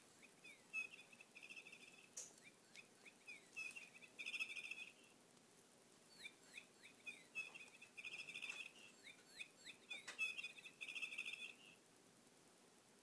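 Electronic bird-call chirping from a feathered-bird spring-wand cat toy, set off as the cat bats it. Each bout is a run of falling chirps and then a fast trill, and it plays twice in nearly identical form, with a few light clicks of the toy being struck.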